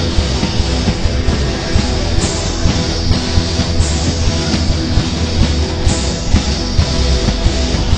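Live rock band playing an instrumental passage: guitar over a steady drumbeat, with cymbal crashes every couple of seconds.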